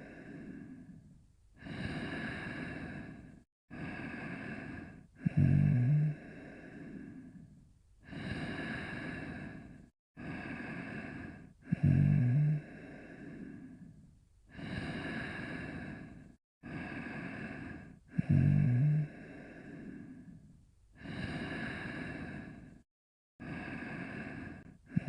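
Cartoon snoring: a short, loud, low rasping snore about every six and a half seconds, with long breathy in- and out-breaths in between.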